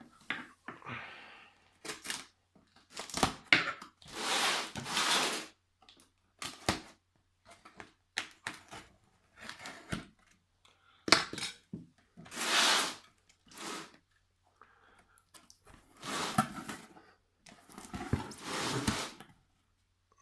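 A cardboard box and its packing being opened and handled by hand: irregular bursts of tearing, rustling and scraping, with a few sharp knocks.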